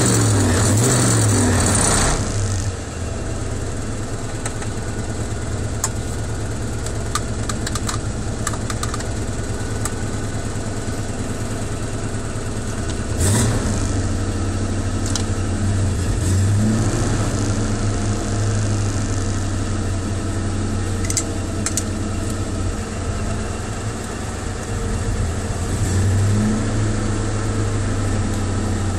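Car engine running at idle just after a hard start, briefly revved up three times. A louder rush of noise in the first two seconds cuts off abruptly.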